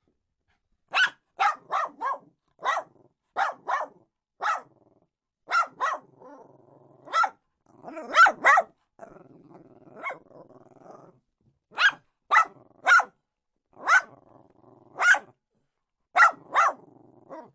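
A dog barking in short, sharp barks that come singly and in quick twos and threes, with a low growl rumbling between some of them.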